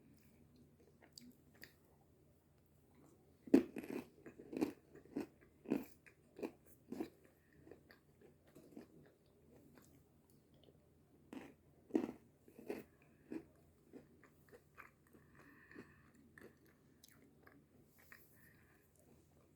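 Close-up chewing of a mouthful of s'mores trail mix with peanuts and graham cookies: quick crisp crunches in two spells, the first starting about three and a half seconds in, the second about twelve seconds in.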